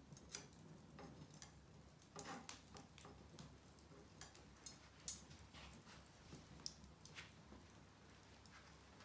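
Wood fire burning quietly, with scattered, irregular pops and snaps from the burning wood over a faint low background.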